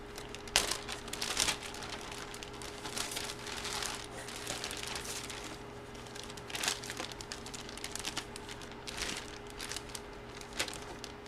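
Trading cards and their plastic packaging being handled: irregular rustling and crinkling with light clicks, a few louder ones standing out.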